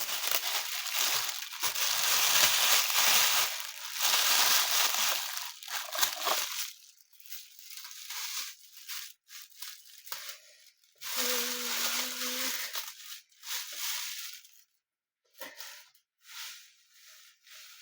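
Plastic bag crinkling and rustling as it is handled and taped: dense for the first six seconds or so, then in short, softer scrunches. A short steady low tone sounds about two-thirds of the way in.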